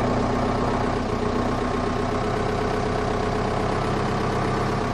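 A motor vehicle's engine idling steadily.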